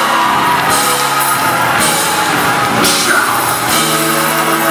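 Live gospel band playing: a drum kit with cymbal crashes every second or so over held keyboard chords and electric bass.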